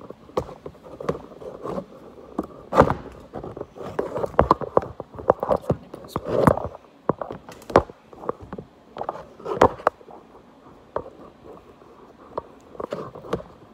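Handling noise from a phone camera being moved and set down: irregular knocks and clicks, with cloth rubbing close against the microphone.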